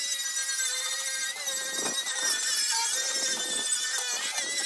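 Small angle grinder running with its disc against weld beads on a steel lawn-mower deck: a steady high whine over a grinding hiss, wavering slightly in pitch as it works the metal.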